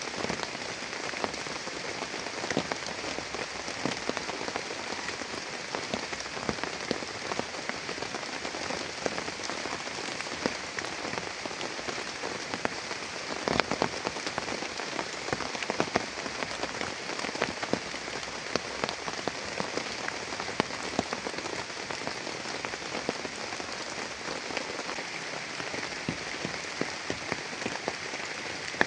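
Heavy rain falling steadily, with many individual drops pattering close by on a surface.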